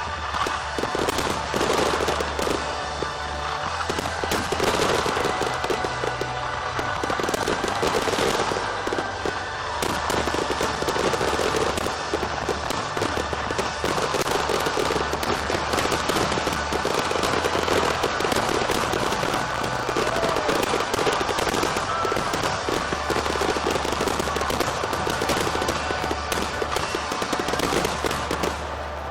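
A fireworks display in a dense, unbroken barrage: rapid bangs and crackling shells going off one on top of another, with music playing underneath.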